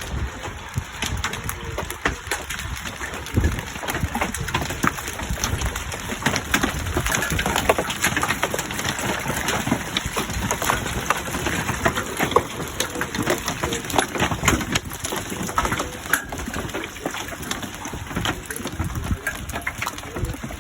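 Hail falling with rain: a dense, irregular patter of sharp ticks and knocks from hailstones striking hard surfaces, over a steady hiss of rain.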